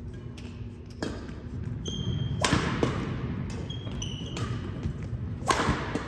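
Badminton rackets striking a shuttlecock in a rally: four sharp hits about a second or a second and a half apart. Short squeaks of sneakers on a hardwood court come between the hits.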